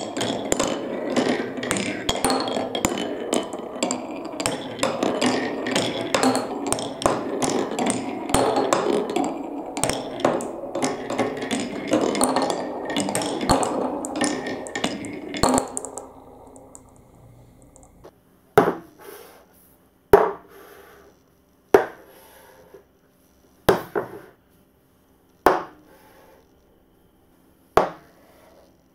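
Glass marbles rolling and rattling along a PlanToys wooden marble run, a steady rumble full of small clicks that dies away about halfway through. Then six separate wooden knocks, about one every second and a half to two seconds, as track pieces are set down on the table.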